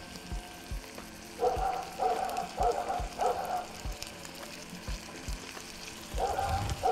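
A dog barking: four barks about half a second apart, starting about a second and a half in, then two more near the end, over the faint sizzle of freekeh frying in a pan.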